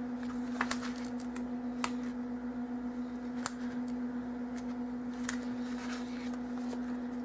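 Scattered small clicks and rustles of hands handling tape and ribbon on cardstock, over a steady low hum.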